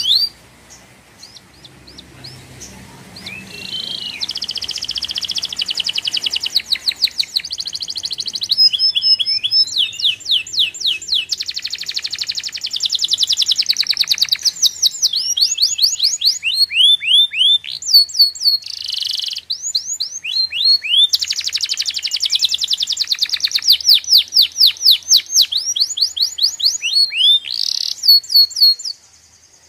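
A songbird singing a long, varied, high-pitched song of rapid trills and quickly repeated chirps, almost without pause, stopping abruptly near the end.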